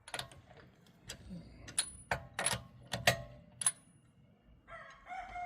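Irregular sharp metallic clinks and clicks of tire-changing tools and hardware, about nine in all. Near the end a rooster begins a long crow.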